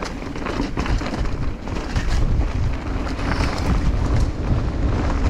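Enduro mountain bike rolling fast down a dirt trail: tyres rumbling over earth and leaves, the bike rattling and knocking over bumps, with wind buffeting the microphone.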